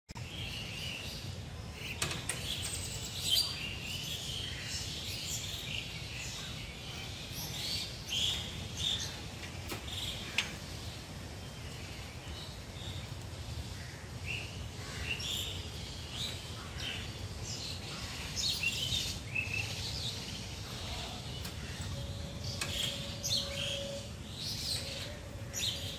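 Many small birds chirping and twittering in short high calls, over a low steady rumble.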